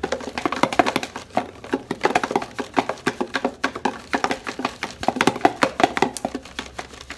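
Marbles rolling and knocking against the walls of a cardboard box that is being shaken back and forth, a rapid, irregular clatter of clicks and thuds.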